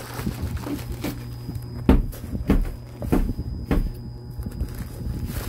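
Bumps and knocks from handling a cable parcel and its packaging by hand, several sudden thumps a second or so apart, over the steady low hum of an electric fan.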